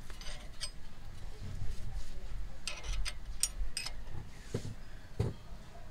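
A steel wrench clinking on a brake caliper bolt as it is worked: scattered light metallic clicks, a quick run of them about three seconds in, then two duller knocks near the end.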